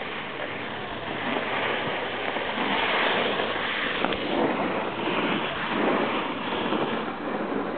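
Ice skate blades scraping across rough natural lake ice, a noisy rasp that swells and fades with the strokes.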